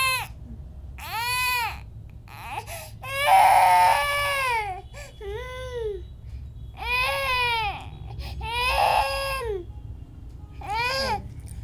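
A toddler crying in about seven separate wails, each rising and then falling in pitch. The loudest wail comes about three and a half seconds in.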